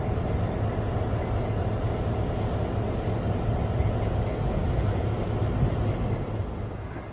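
EMD FP7 diesel locomotive's 16-cylinder two-stroke 567 engine running steadily, a low, even drone.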